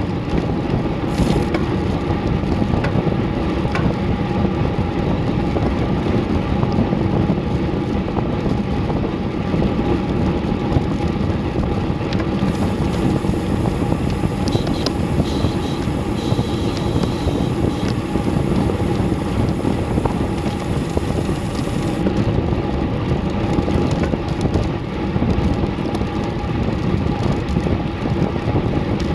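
Steady wind rush over a bike-mounted action camera's microphone, mixed with tyre noise on asphalt, as a road bike rolls at about 20–25 mph.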